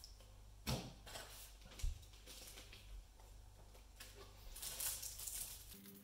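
Board-game pieces handled on a wooden table: a short clatter, then a low thump as the plastic key-card stand is set down. Near the end comes a rustle as a deck of picture cards is lifted from the cardboard box.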